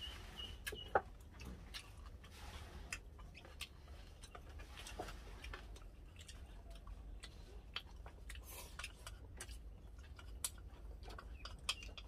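People eating at a meal: scattered light clicks and taps of utensils and dishes, with soft chewing.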